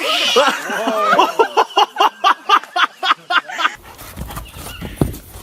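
A dog yelping in a fast run of short, high cries, about four to five a second, cut off suddenly about two-thirds of the way through. Low rumbling noise with a few knocks follows.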